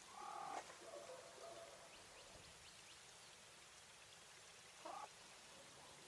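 English White coturnix quail hen calling: a short call at the start trails off into a few softer, lower notes, and a second short call comes near the end.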